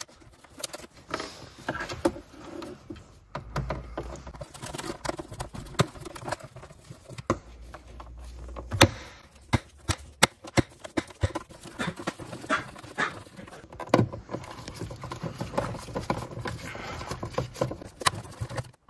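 Irregular clicks and light knocks of hand work with a small Torx screwdriver: screws being undone and handled under a car's glovebox. A low rumble runs for a few seconds near the start.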